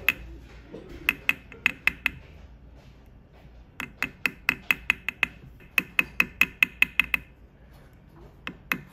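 Small metal hammer tapping a steel setting punch, sharp metallic taps with a brief high ring, in runs of four to seven about three a second with short pauses between. The punch is pressing the gold over the stones in a diamond pavé setting.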